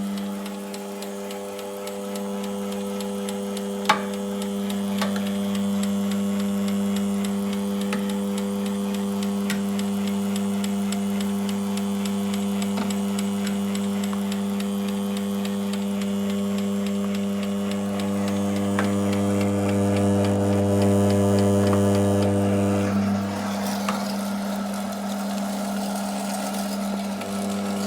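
FAMA electric meat grinder's motor running with a steady low hum. There is a single sharp knock about four seconds in, and the hum changes character about 23 seconds in.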